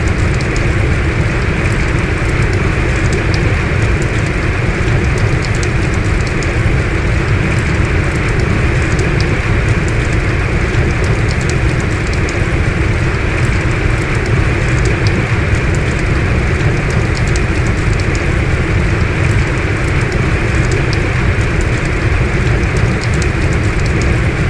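Heavy rain falling steadily, a dense even hiss with individual drops ticking through it.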